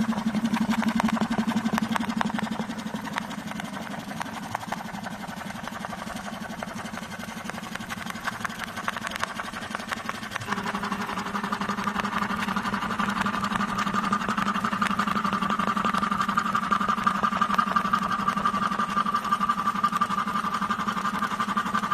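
Computerized pattern sewing machine stitching a herringbone pattern: a rapid, steady run of needle strokes over the machine's motor hum. About ten seconds in, the hum shifts in pitch and gets louder.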